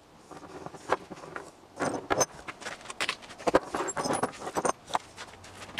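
Galvanized 3/16-inch steel chain clinking and rattling as it is handled and laid out on a wooden workbench, in irregular jangles with sharp metallic clinks.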